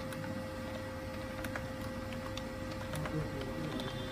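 Computer keyboard being typed on: faint, irregular keystroke clicks over a steady background hum.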